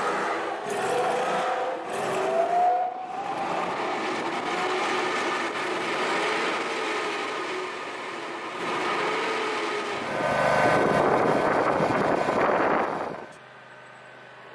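Electric insulation blower running, a steady rushing noise with a wavering whine. About ten seconds in it turns louder and rougher, then cuts off suddenly near the end, leaving only a low hum.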